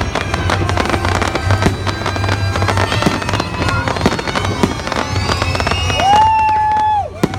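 Fireworks bursting and crackling in quick, irregular bangs over show music, with a long held tone near the end that cuts off abruptly.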